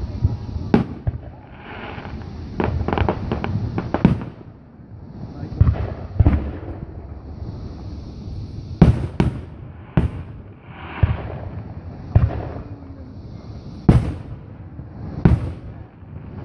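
Aerial firework shells bursting overhead in irregular sharp bangs, with a quick run of cracks about three seconds in. The loudest bangs come about nine seconds in and again near fourteen.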